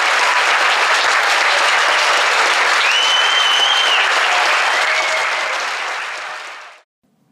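Audience applauding at the end of a stage show, with a shrill held whistle from the crowd about three seconds in that lasts about a second. The applause fades out near the end.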